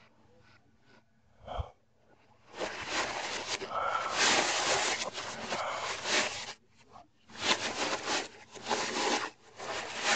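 Christmas wrapping paper crinkling and rustling as it is handled around a gift box. The paper noise starts about two and a half seconds in, comes in loud dense stretches and eases off briefly past the middle.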